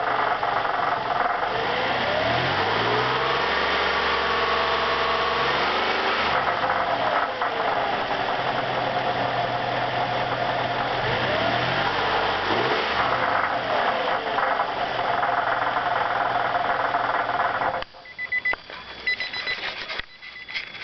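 2002 Nissan Maxima's 3.5 L V6 running with an under-hood rattle, revved up twice and let back down to idle. The rattle is undiagnosed: compression is even and the oil pressure light stays off, and the noise gets louder as the engine warms. Near the end the engine sound drops away abruptly, leaving faint clicks.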